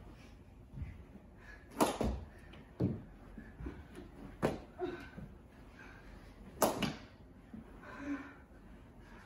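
Mini-sticks game: plastic mini hockey sticks knocking a ball around on carpet, four sharp clacks over several seconds, the loudest about two seconds in and near seven seconds in.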